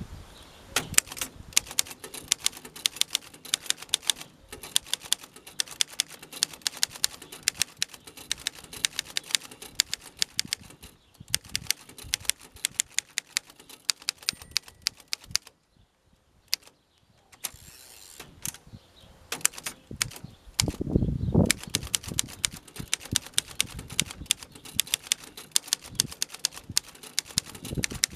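Keys being struck on a 1920 Underwood Standard No. 5 manual typewriter, its typebars hitting the platen in a quick, uneven run of sharp clacks. The typing pauses for about two seconds around the middle, and a heavier, deeper thud comes a few seconds later before the clacking resumes.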